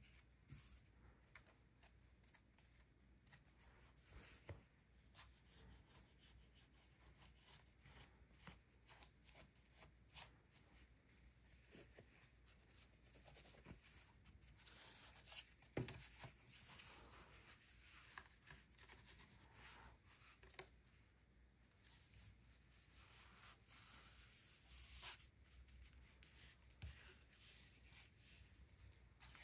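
Faint rustling, rubbing and light taps of cardstock being handled, with a slightly louder cluster of handling noises about halfway through, as the glued back panel of a paper bag is set in place and pressed down.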